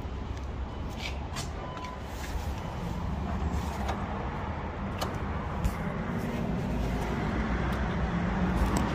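A steady low mechanical hum, growing slightly louder, with a few short clicks and light knocks scattered through it.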